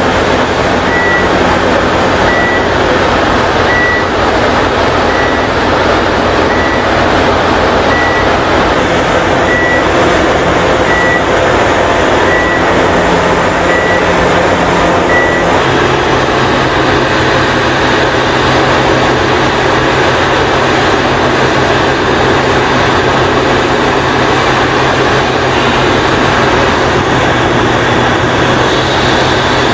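Giant hydraulic mining excavator's diesel engine running loudly and steadily. Its warning alarm beeps about every second and a half for the first half. About midway the beeping stops and the engine note shifts as the bucket is worked into the rock.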